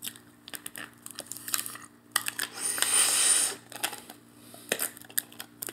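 Light clicks and taps of an orange plastic water bottle being handled, with a rushing hiss lasting about a second and a half in the middle.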